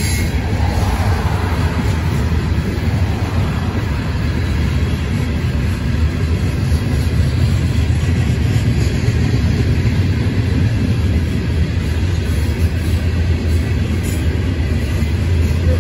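Freight cars of a Norfolk Southern coal train rolling past: a steady, low rumble of steel wheels on rail.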